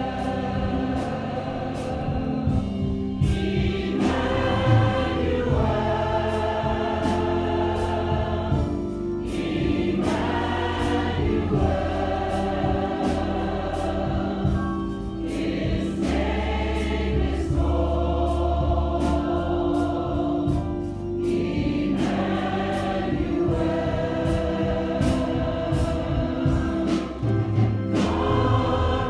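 Church congregation singing a gospel song together in phrases that pause every few seconds, over sustained low accompaniment notes and a steady percussive beat.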